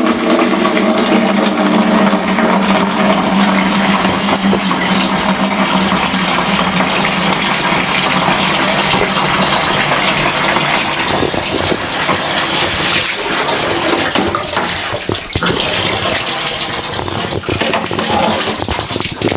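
Water rushing and splashing over bathroom floor tiles as they are rinsed after cleaning. It is a steady, loud rush, with a low steady tone that fades out over the first few seconds and scattered knocks later on.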